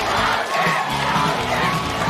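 Studio audience cheering and clapping, many voices shouting at once, over background music.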